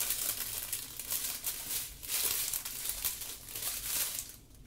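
Small plastic bags of diamond-painting drills crinkling and rustling as they are handled and sorted through, dying down near the end.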